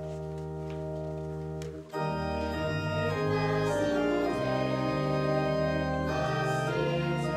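Organ playing a hymn in slow, sustained chords. A held chord breaks off briefly about two seconds in, then the playing comes back louder, with the chord changing every second or so.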